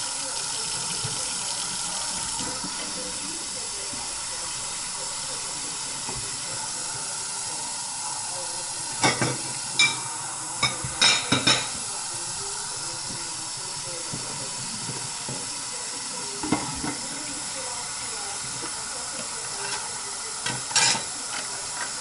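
Kitchen faucet running steadily into a sink, with dishes and a plastic container knocking and clattering against the sink several times, in a cluster about nine to twelve seconds in and again near the end.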